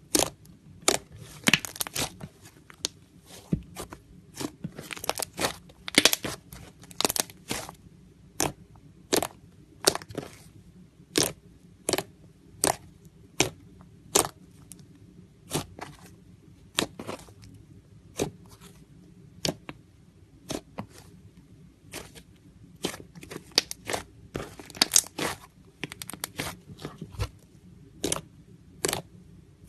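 Slime being squished and pressed by hand, making sharp popping clicks about once or twice a second at an irregular pace, over a faint low hum.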